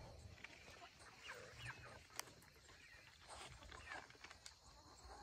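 Near silence with a few faint, short animal calls scattered through it.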